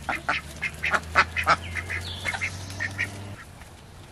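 A small flock of ducks quacking in short, quick calls, several a second, thinning out after about three seconds.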